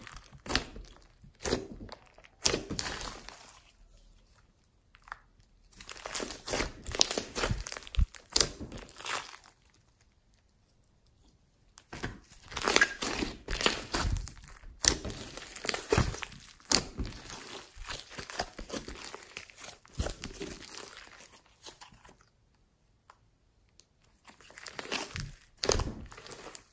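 A large mass of thick, bead-flecked slime squeezed, stretched and folded by hand, giving squishy crackles and pops in four bursts with short quiet pauses between them.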